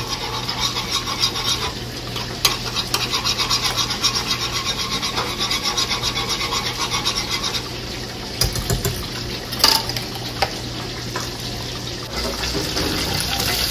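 Wire whisk scraping fast and evenly around a stainless steel skillet of thick flour gravy for about seven seconds. It stops with a thump and a clank, and the gravy simmers with a soft hiss.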